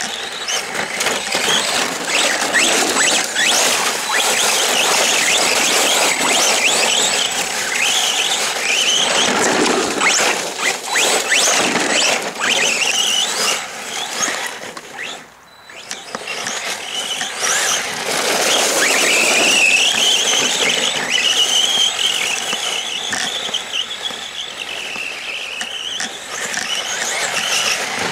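Arrma Senton 3S BLX RC short course truck driving hard, its brushless motor and drivetrain whining up and down in pitch with the throttle, over a rough noise of tyres on wet gravel and mud. The sound drops away briefly about halfway through, then the whine picks up again.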